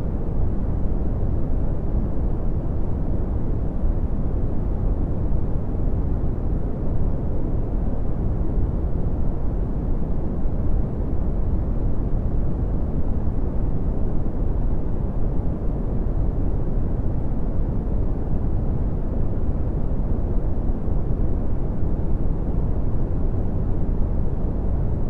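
Red (Brownian) noise: a steady, deep rumbling hiss, strongest in the lows and fading toward the highs, with no change throughout.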